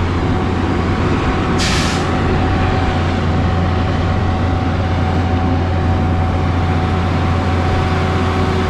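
Heavy diesel truck engine running steadily with a low drone, and a short burst of air-brake hiss about a second and a half in.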